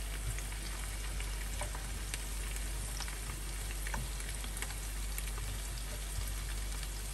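Chicken pieces and chopped parsley sizzling steadily in oil in a non-stick frying pan while being stirred with a wooden spatula, with scattered light clicks.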